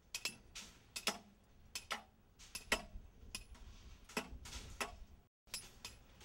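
Light metallic clinks and taps from work on a steel rebar mat, irregular at roughly two a second, some with a short ring.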